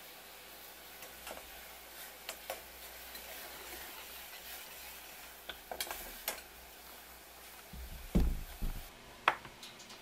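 Tendon sauce simmering in a pot with a steady low bubbling hiss, broken by scattered light clicks. A metal ladle stirs and clinks against the pot about six seconds in, and a low thump and a sharp knock come near the end.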